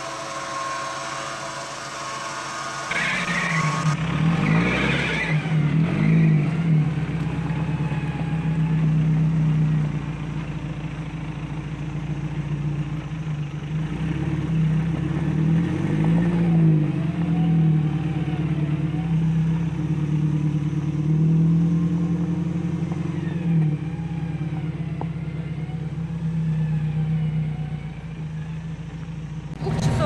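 An electric winch whines steadily for the first few seconds. Then a UAZ 4x4's engine revs up and down under load as it crawls up a steep dirt slope.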